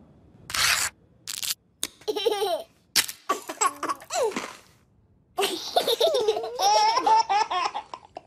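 A few short breathy bursts, then human laughter with a wavering, bending pitch that grows fuller in the last few seconds.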